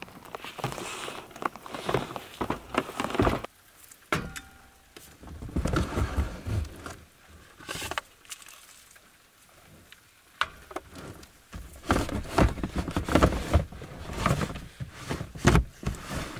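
Rain patter for the first three seconds or so, then it cuts off and gives way to irregular knocks, clatter and rustling as camp cooking gear and a plastic storage bin are handled and set down.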